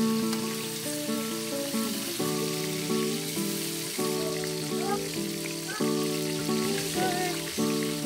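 Chicken pieces sizzling as they fry in hot oil in a wok, a steady crackling hiss. Background music plays over it, its notes changing about every second.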